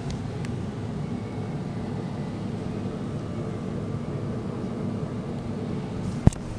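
Steady low hum and hiss of room and recorder noise, with one sharp knock near the end.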